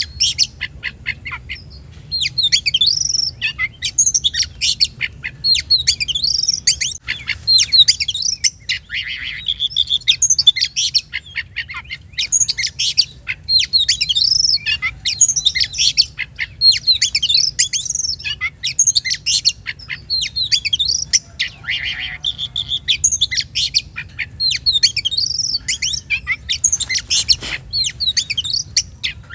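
Oriental magpie-robin (kacer) singing a loud, fast, nearly continuous song of quick whistled notes, sweeps and rapid trills, with a short pause about a second in.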